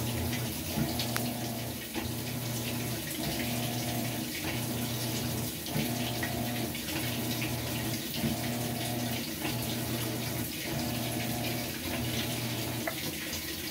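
Vertical modular top-load washer test-running its newly replaced gearcase on fast agitate: the drive motor hums in short strokes, breaking off and restarting about every 1.2 seconds as it reverses. Water rushes steadily into the tub from the fill underneath.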